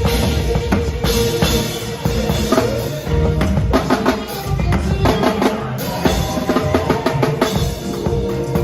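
Drum kit played at a sound check: a dense run of snare and bass drum strokes, with rimshots, and music from other instruments underneath.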